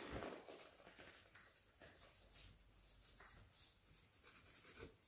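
Faint rubbing and light scraping of a disinfecting wipe being worked over a wheelchair's front caster fork by a gloved hand.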